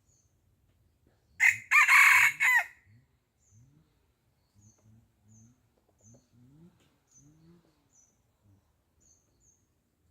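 A rooster crows once, loud, about a second and a half in. After it come soft, low, rising clucks from chickens, with faint high chirps scattered through.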